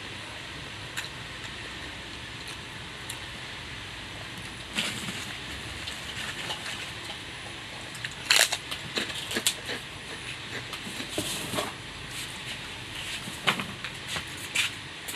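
Close-up eating sounds: a person chewing crunchy food in irregular crackly crunches, starting about five seconds in and loudest a little past the middle. Under them runs a steady hiss of background noise.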